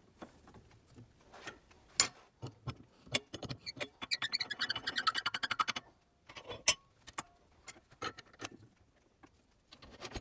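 Metal clicks and clinks from a chuck key working a scroll chuck on a mini wood lathe as it is tightened onto a wood blank, with a fast run of ringing metal clicks about four to six seconds in.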